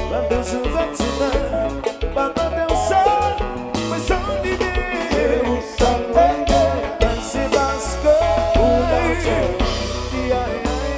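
Live konpa band music: drum kit and percussion keep a steady groove under a strong bass line and melodic lead lines.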